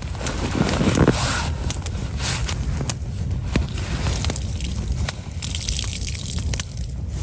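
Campfire crackling, with sharp pops scattered throughout. A soaked sock is wrung out by hand and water dribbles from it.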